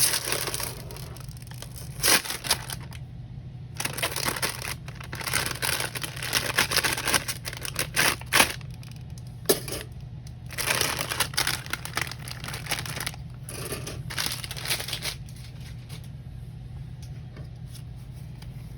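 Plastic parts bag from a Gunpla model kit being torn open and crinkled while the pieces are taken out: irregular bursts of rustling with a few sharp clicks. It dies down near the end, leaving a steady low hum.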